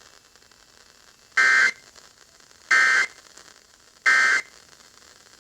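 Emergency Alert System end-of-message signal: three short bursts of two-tone digital data buzz, each about a third of a second and spaced about 1.3 seconds apart, marking the end of the broadcast alert. Faint radio hiss lies between the bursts.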